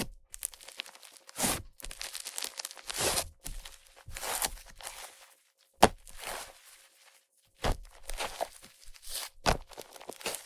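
Fluffy clay-butter slime made with Yoda clay being squeezed and pressed by hand, giving airy sizzling, crackling squelches in irregular bursts about once a second as air is worked into it.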